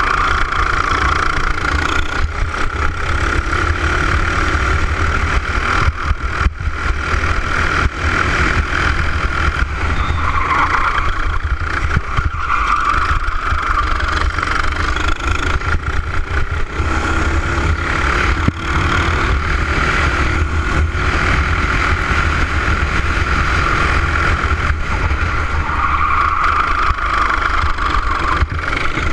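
Racing kart engine heard on board, running hard throughout, its pitch rising and falling as the driver goes on and off the throttle through the corners, over a constant low rumble.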